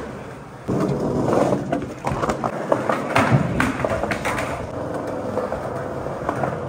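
Skateboard rolling on wet pavement: a steady wheel rumble that starts about a second in, with scattered small clacks and knocks.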